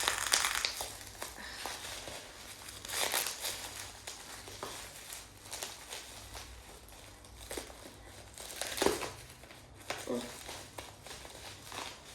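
Packaging being torn and crumpled open by hand: irregular crinkling and rustling in bursts, the loudest about nine seconds in.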